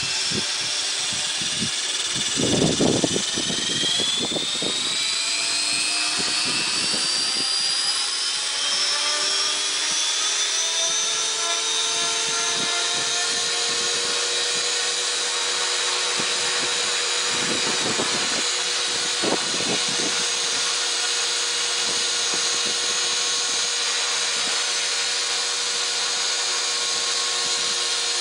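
Radio-controlled helicopter on a test stand, its motor, gears and rotor head whining. The whine climbs in pitch over the first ten seconds or so as the rotor spools up, then holds steady. A low rumble about three seconds in is the loudest sound, and there is another past halfway.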